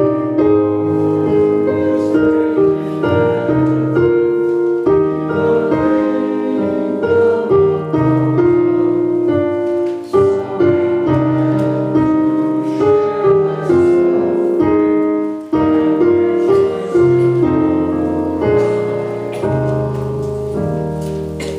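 Piano music: a melody over held low notes, growing quieter near the end.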